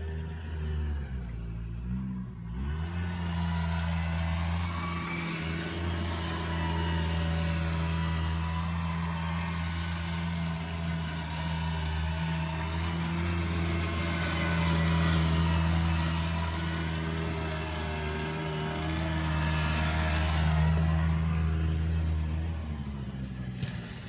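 Dinli 90cc youth ATV engine running at a steady speed as it is ridden around, its pitch dipping and picking up again about two seconds in. It grows louder and fainter as the quad passes nearer and farther, and drops away just before the end.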